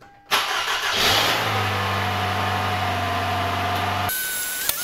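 Toyota Camry 2.5-liter four-cylinder engine running steadily after a transmission replacement, warming the freshly filled transmission fluid. It breaks off suddenly about four seconds in.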